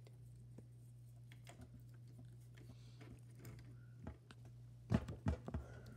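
Handling noise at a cluttered paint table: faint clicks and taps, then a few louder knocks about five seconds in, over a steady low hum.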